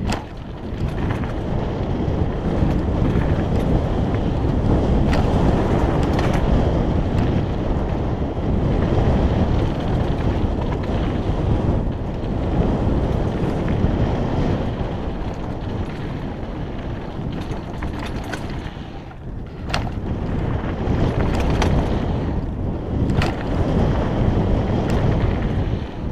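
Wind buffeting an action camera's microphone as a mountain bike rolls fast down a loose gravel dirt trail, with the rumble of the tyres on the ground and a few sharp clacks of the bike rattling over rocks.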